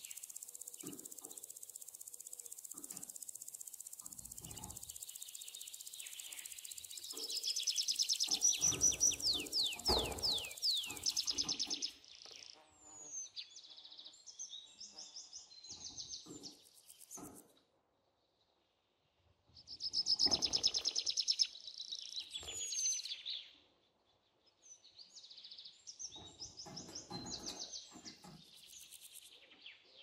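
Budgerigar chattering in several bursts of rapid chirps and quick falling whistles, with short pauses between them. A steady high hiss runs under the first ten seconds or so.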